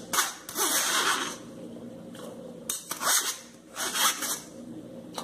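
Pitanga fruit pulp being scraped off a mesh sieve into a pot of boiling juice: about four short scraping strokes, one of them longer.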